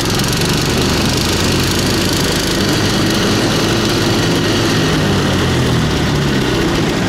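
Engine of a Baltmotors Barboss motorized ice-towing unit running steadily as it pulls the rider across lake ice, at an even pitch and level throughout.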